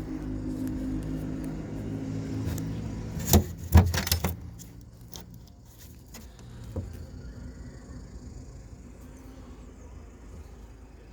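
Plastic trim on an Audi A6 C6 estate's tailgate being pried off around the third brake light, with a cluster of sharp clicks and knocks about three to four seconds in as the retaining clips give, then light handling. A steady low hum runs under the first few seconds and fades as the clicks come.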